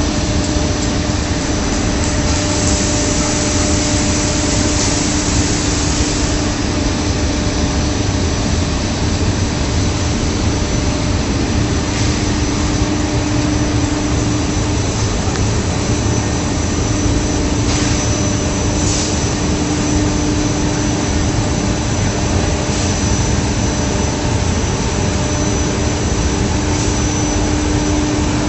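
Textile finishing machinery running steadily: a loud, even machine noise with a constant hum and a thin high whine, and a few faint clicks.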